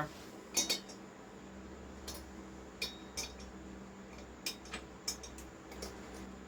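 Scattered light metallic clicks and clinks, about ten of them at uneven intervals, as metal tools or parts are handled at a lathe, over a steady low hum.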